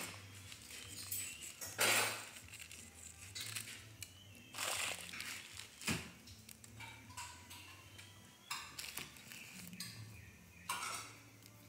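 Intermittent kitchen handling sounds: a few brief rustles and light clinks of a ceramic cup and glass as bread dough is worked and glazed, with one sharp click about six seconds in. A faint low hum runs underneath.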